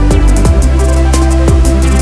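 Background music with a steady drum beat and deep sustained bass.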